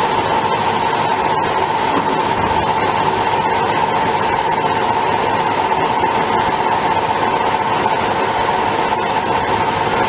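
CNC plate-drilling machine's high-speed spindle running with a steady whine and a constant hiss as the bit drills into metal plate.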